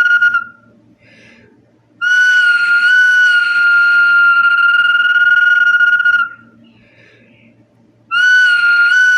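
Whistling bottle sounding long, steady, high whistle notes, each held for about four seconds with a slight waver. Each note opens with a small step up in pitch. One note ends just after the start, and the next two begin about two seconds and eight seconds in, separated by short quiet gaps.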